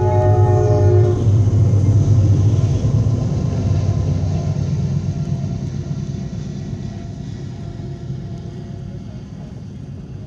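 Norfolk Southern freight train's locomotive air horn sounding a chord that cuts off about a second in. Then the diesel locomotives and intermodal cars pass over the crossing with a deep, steady drone that slowly fades.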